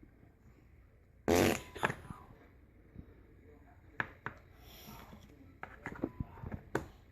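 A fart-noise toy plays one fart sound, about half a second long, a little over a second in, followed by scattered light clicks and taps as the toy is handled.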